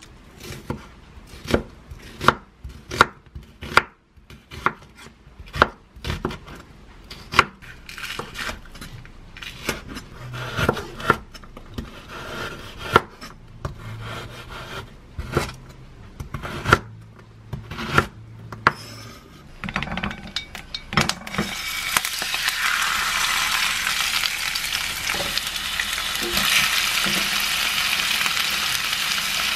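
Chef's knife chopping green onion on a wooden cutting board, single sharp knocks one after another. About twenty-one seconds in, a steady loud sizzle takes over as marinated meat and onion fry in a pan.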